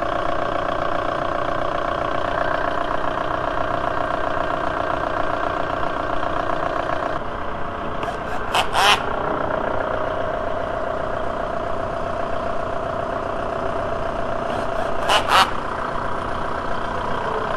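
VW 1.9L ALH TDI four-cylinder turbodiesel idling steadily while it warms up after a thermostat replacement, with the air in the cooling system still to purge once the thermostat opens. Two short clusters of sharp clicks stand out, one about nine seconds in and one about fifteen seconds in.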